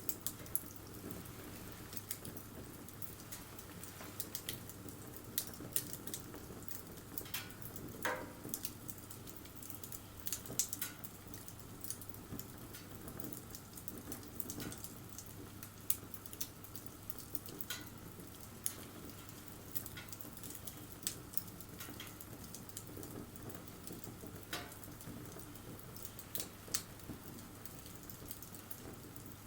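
Wood bonfire crackling: irregular sharp pops and snaps, several a second at times, over a steady soft hiss.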